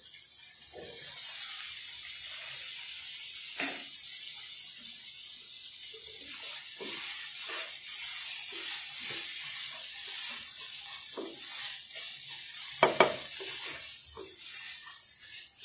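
Dried Bombay duck and tomato mixture sizzling in a nonstick frying pan just after liquid is added, with a spatula stirring and scraping through it. Two sharp knocks come about thirteen seconds in, the loudest sounds here.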